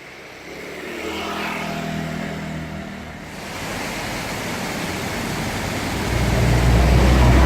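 Road traffic passing close by: one motor vehicle goes by in the first few seconds, then a louder, heavier vehicle approaches with a deep engine rumble and tyre noise, loudest near the end.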